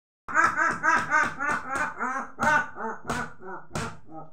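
A man in a jagar possession trance giving rhythmic, repeated short vocal cries, about three a second, each rising and falling in pitch. The cries grow fainter toward the end, and a few sharp hissing breaths come between them in the last second or so.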